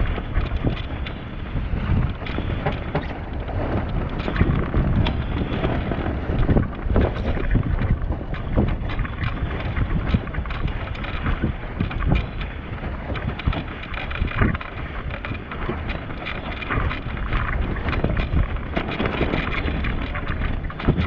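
Wind buffeting the microphone on a sailboat under way, a gusting rumble with water splashing and rushing along the hull in irregular bursts.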